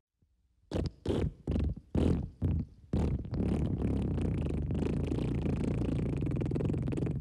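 A cat purring close to the microphone: a low rumble that comes in short broken bursts at first, then runs steady from about three seconds in.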